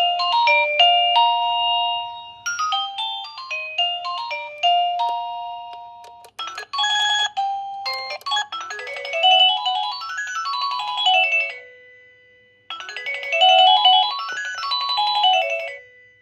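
Electronic doorbell chime playing its built-in melodies: a few short tunes of separate electronic notes, then a quick run of notes climbing and falling back down, played twice with a short pause between.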